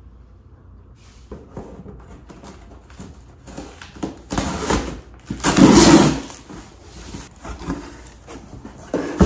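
Large cardboard box being opened by hand: flaps and lid scraping and rustling, with the loudest rasping stretch a little past halfway, then lighter knocks of cardboard.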